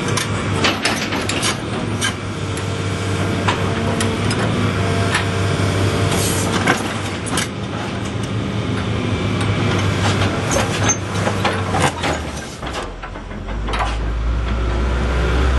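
John Deere 225C LC hydraulic excavator's diesel engine running steadily, with frequent sharp metallic clanks and knocks from the working machine. Near the end the engine note shifts lower and grows stronger.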